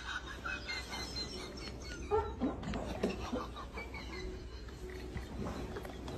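A few faint, short, squeaky vocal sounds from a person, about two to three and a half seconds in.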